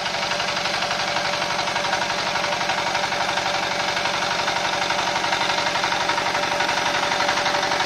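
Buffalo BFDE-130 walk-behind tractor's 13 hp single-cylinder, water-cooled diesel engine running steadily with a rapid, even chugging beat as the machine is driven.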